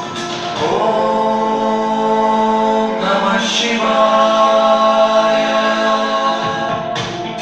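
Music track in which a singer holds two long sung notes, the first from about a second in and the second from about three seconds in. The percussion drops out under the held notes and comes back near the end.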